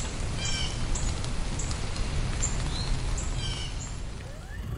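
Birds chirping over a steady background of light rain, with the same chirp heard twice. Near the end a rising whine begins as a cordless electric lawnmower's motor spins up.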